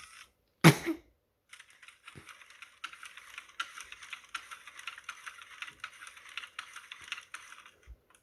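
Roboraptor robot dinosaur toy's motors and plastic gears clattering in a dense, irregular run of small clicks as it moves, after one loud sudden sound under a second in.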